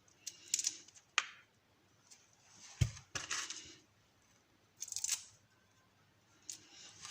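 A few short, scattered clicks and rustles from hands handling and cleaning raw shrimp, with quiet gaps between them.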